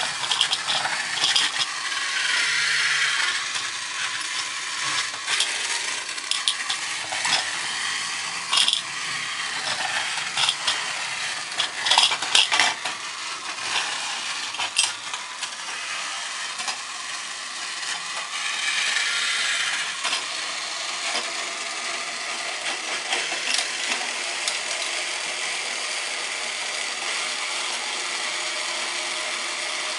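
Battery-powered Thomas and Percy toy engines whirring along plastic track through the Post Office Loader play set. Scattered plastic clicks and clacks come through in the first half, then a steadier whir.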